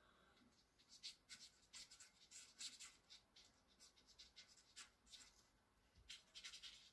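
Felt-tip pen scratching faintly on paper in quick, short hatching strokes. The strokes come in a rapid run for several seconds, pause briefly, then another flurry comes near the end.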